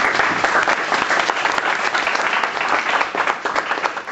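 Audience applauding: a dense, steady clapping that eases off a little near the end.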